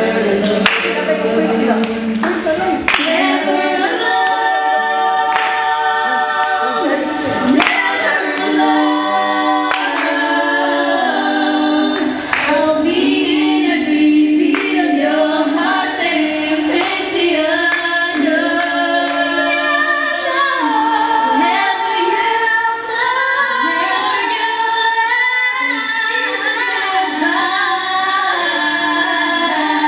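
Four women singing a song together into handheld microphones, several voices at once.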